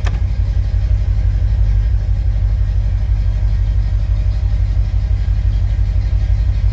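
Car engine running with a steady low rumble, and a single sharp click at the very start.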